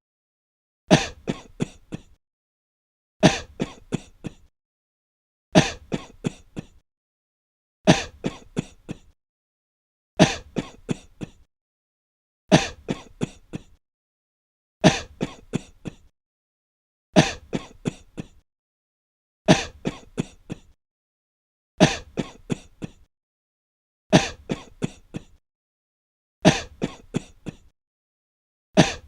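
A person breathlessly coughing in short fits. Each fit is one loud cough followed by about four quicker, fading coughs, and the same fit repeats about every two and a half seconds with silence between.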